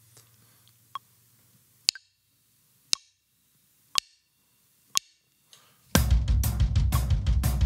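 A metronome clicking at 60 beats per minute, one sharp click a second. About six seconds in a drum kit comes in with hand-to-foot sixteenth-note triplets, about six strokes to each click, hands on the drums alternating with the bass drum pedal.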